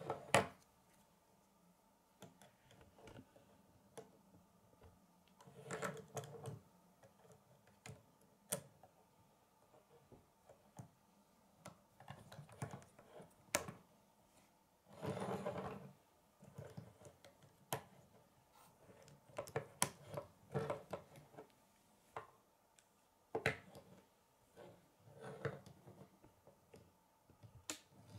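Plastic K'nex rods and connectors being pressed and snapped together by hand: scattered sharp clicks, with a longer spell of rattling handling about halfway through.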